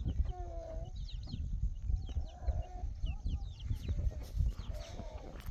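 Domestic fowl calling: a few short pitched clucking calls near the start, in the middle and near the end, with many small high falling chirps throughout, over a low rumble.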